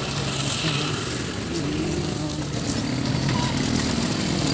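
Steady road noise heard from a moving bicycle, with the low, even hum of a motor vehicle's engine running close by.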